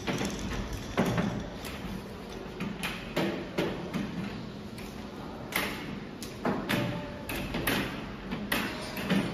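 Aluminium extrusion frame and metal rails being handled and set in place, giving a string of irregular metal knocks and clatters, about a dozen in all.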